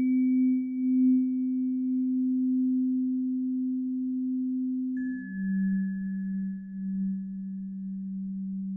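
Breathing-pacer tones for HRV (heart-rate-variability) breathing: a steady low hum that steps down in pitch about five seconds in, the change marked by a soft bell-like ping that fades out, cueing the switch from one phase of the breath to the next.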